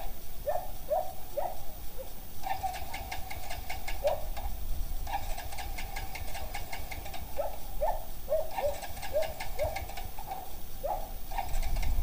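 Yamaha Vega Force FI's electric starter cranking the engine in repeated presses of two or three seconds, with short quick taps in between, and the engine never catching. The fault behind the no-start was a dirty fuel pump.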